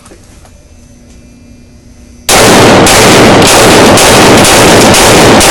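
Quiet room noise, then about two seconds in a rapid string of gunshots starts, about two shots a second, so loud that the recording stays overloaded between them.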